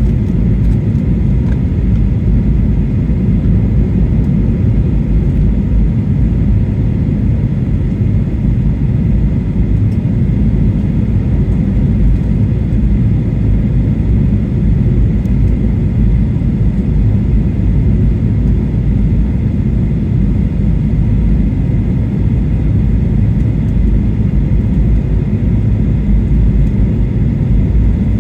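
Boeing 737-800 airliner cabin noise on approach: the steady low rumble of engines and airflow heard from inside the cabin, with a faint steady high tone over it.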